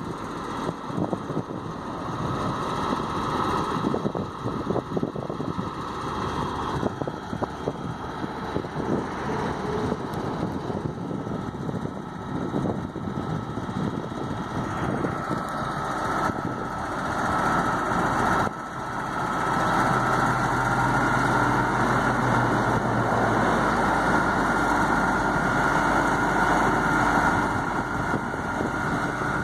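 GMC truck engine running, powering the National 600B boom crane's hydraulics as the boom is raised and extended. Wind buffets the microphone through the first half; about two-thirds of the way through the engine becomes louder and steadier, with a steady high whine over it.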